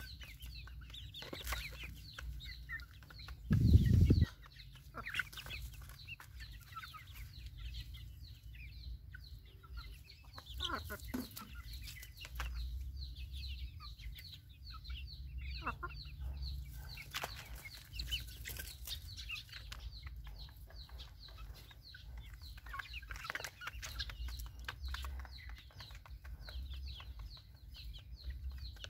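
A flock of young chickens clucking and peeping, with many short high calls, as they feed. About four seconds in, a brief loud low thump stands out above the calls.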